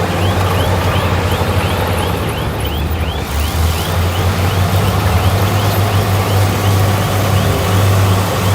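Komatsu bulldozer's diesel engine running steadily while pushing soil, with a faint high squeak repeating about two to three times a second.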